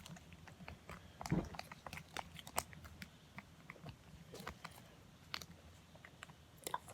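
Slime being worked by hand or spoon: irregular small sticky clicks and crackles, with a single dull knock about a second and a half in.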